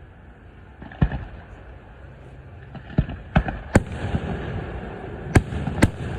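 Aerial fireworks display: about six sharp booms at uneven intervals over a low background of further bursts.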